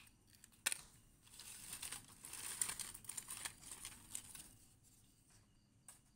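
Dry agarwood chips rustling and clicking as a hand rummages through a pile of them: a sharp click about a second in, then a few seconds of crackly rustling that fades out.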